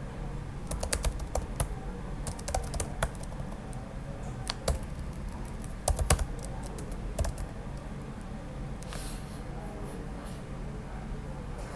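Typing on a computer keyboard: irregular runs of quick key clicks, busiest through the first seven seconds or so and sparser after that, over a faint steady low hum.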